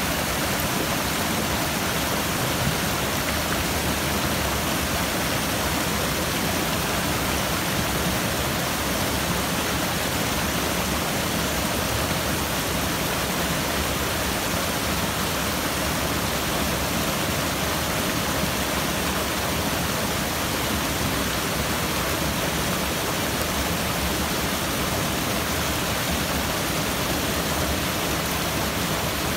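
Mountain stream cascading over rocks and small waterfalls: a steady, even rush of water.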